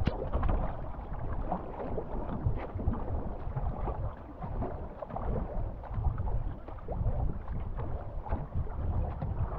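Paddles stroking and water splashing along a canoe hull as two paddlers race, with wind rumbling on the microphone.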